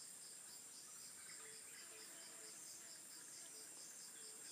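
Faint insect chorus in the bush: a steady high buzz with a chirp repeating about three times a second.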